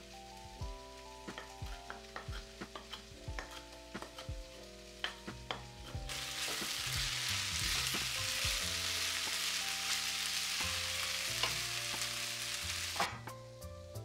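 A chef's knife taps on a wooden cutting board as cilantro is chopped, irregular sharp knocks about twice a second. About six seconds in, this gives way to taco meat (ground beef with tomatoes) sizzling in a frying pan as a wooden spatula stirs it. The sizzle stops about a second before the end with a sharp knock. Soft background music plays throughout.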